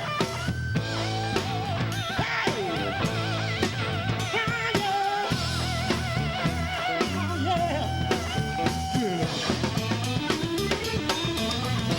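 A band playing: guitar over bass and a drum kit keeping a steady beat, with a lead line that wavers in pitch.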